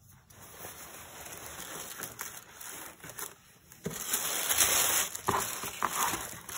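Tissue paper and packaging wrap crinkling and rustling as they are handled and pulled back in a cardboard box. It gets louder about four seconds in.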